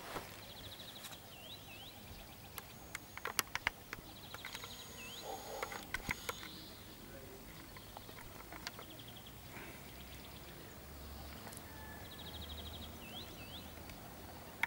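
A small songbird singing short high trills that end in quick upward-hooked notes, three times, over faint outdoor background. Sharp clicks come in clusters a few seconds in and again near the middle.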